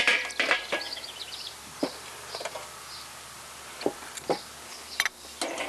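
A few sharp knocks and clatters from a kettle grill's lid and a baking pan being handled, the loudest right at the start and about five seconds in. Behind them a wren sings: repeated short high chirps and a quick trill.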